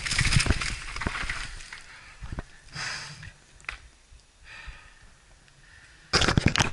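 Bicycle rolling over rough dirt and leaf litter, a rattling rumble with wind on the microphone that fades as the bike slows to a stop. About six seconds in, loud knocks and rubbing as a hand handles the camera.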